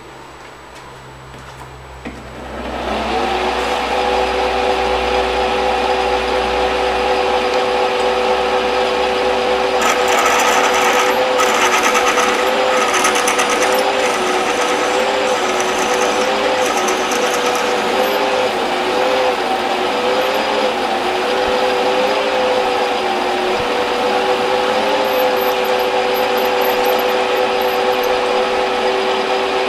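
A metal lathe driving a 29/64 cobalt twist drill into the end of a spinning metal bar. After a low hum, it gets much louder about three seconds in as the drill bites, then runs as a steady cutting whine of a few slightly wavering tones, with a crackle of high ticks for several seconds in the middle.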